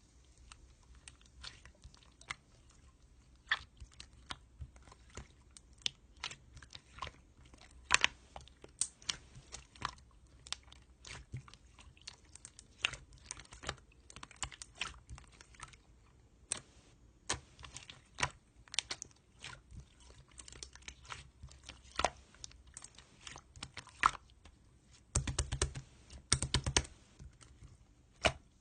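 Slime being played with by hand, making irregular sharp clicks and pops, several a second, with denser runs of crackling near the end.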